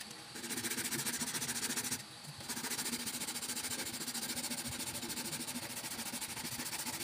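Sandpaper rubbed by hand over a carabao-horn slingshot frame held in a vise, a dry rasping in quick back-and-forth strokes, several a second, with a brief pause about two seconds in.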